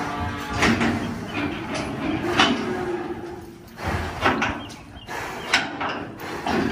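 Bull in a metal stock trailer: repeated knocks and clangs of the animal shifting against the trailer walls, with one drawn-out moo starting about a second and a half in.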